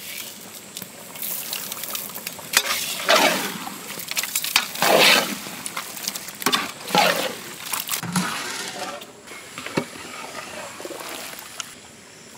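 Water being poured into a large cooking pot, in several separate pours that splash and slosh, the loudest a few seconds in.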